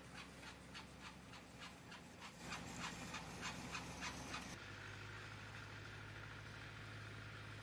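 Farm machinery running: an engine's steady hum under a regular rasping clatter, about three strokes a second. About four and a half seconds in, the sound changes abruptly to an engine's steady drone.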